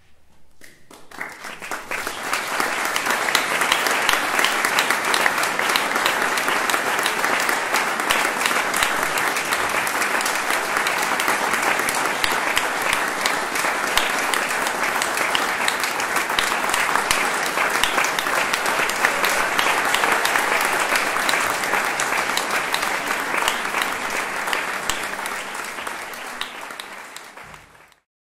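Audience applauding. The clapping swells over the first two seconds, stays steady and dense, then tails off and cuts out near the end.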